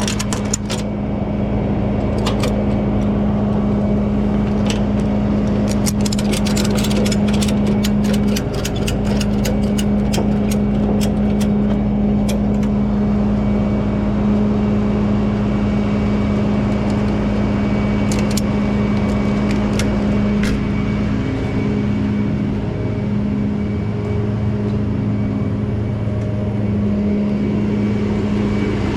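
Tow truck's engine idling steadily, with a run of rapid metallic clicks from about six to thirteen seconds in as a ratchet strap is tightened to tie the car down on the bed.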